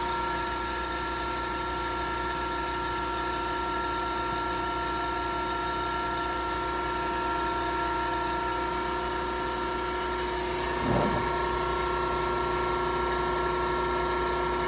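1998 Campbell-Hausfeld Speedaire 5 hp compressor with its three-phase electric motor, fed from a variable frequency drive, running unloaded. It makes a steady hum with several high held tones.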